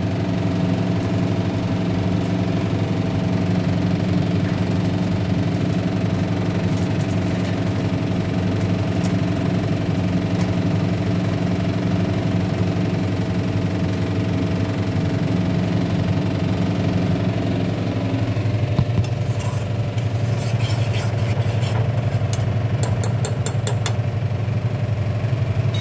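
A steady low mechanical hum, like a motor running. Light clicks and crackles join it near the end.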